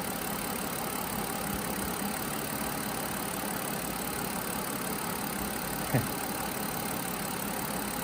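Mazda MPV's 3.0-liter V6 idling steadily, an engine with an intermittent cylinder misfire. About six seconds in there is one brief sharp knock with a quick falling tone.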